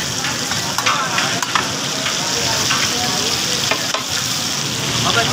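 Meat chops sizzling as they fry in fat on a large flat iron tawa, with a metal spatula scraping and clicking against the griddle.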